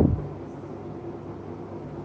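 Steady background hiss with a faint low hum (room tone), just after a word of speech trails off at the very start.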